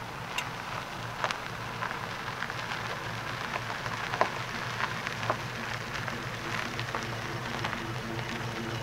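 Tyres crunching over a gravel dirt road, with scattered sharp pops of small stones, as a 1956 Pontiac Chieftain station wagon rolls slowly past. Its V8 engine runs low and steady underneath, growing a little more distinct near the end.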